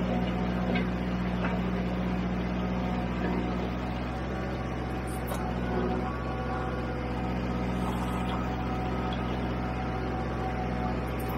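Kubota L4600 tractor's four-cylinder diesel engine running steadily under light load as it slowly pulls a land leveler through asphalt millings.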